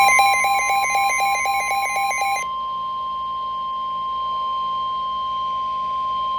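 Emergency Alert System attention tone: a steady, piercing single alarm tone. For about the first two and a half seconds a rapid repeating beeping pattern sounds over it, then stops, leaving the long tone alone.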